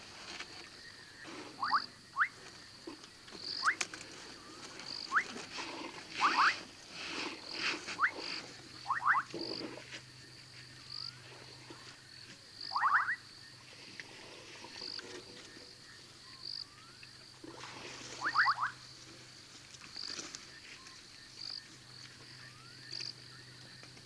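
Frogs calling at night: short rising calls, often in quick twos and threes, repeating every second or two over a steady high-pitched pulsing call about once a second. Scattered short splashing and slurping sounds come from elephants drinking at the water.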